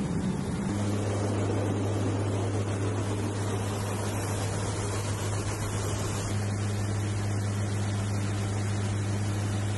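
C-130J turboprop engines and propellers heard inside the cockpit: a steady low propeller hum over a constant wash of engine and airflow noise. The hum sets in just under a second in.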